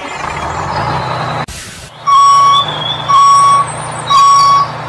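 A hiss like a truck's air brakes releasing cuts off sharply about a second and a half in. A truck's reversing alarm then beeps three times, about once a second, each beep about half a second long at one steady pitch.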